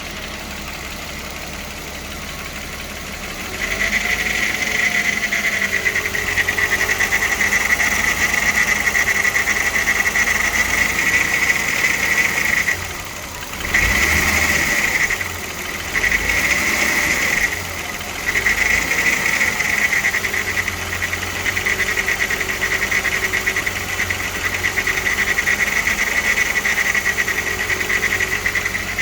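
VW VR6 engine (AES) running with a timing chain rattle: a dense, metallic rattle over the engine note, the usual sign of worn timing chains. The rattle grows louder a few seconds in and drops away briefly three times.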